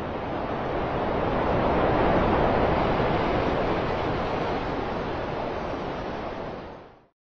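Rushing sound of sea surf, a steady wash that swells to its loudest about two seconds in, then eases and fades out near the end.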